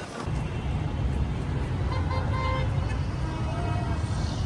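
Road traffic: a steady low rumble of vehicles that comes up suddenly just after the start, with faint short car-horn toots about two seconds in.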